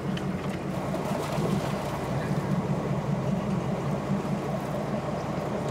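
A boat's engine running with a steady low hum, under a wash of wind and water noise.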